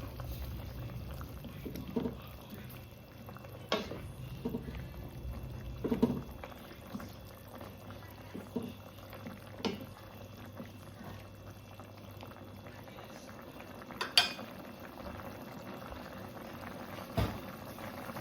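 Pot of soup bubbling at the boil, with a few short knocks and clinks scattered through it.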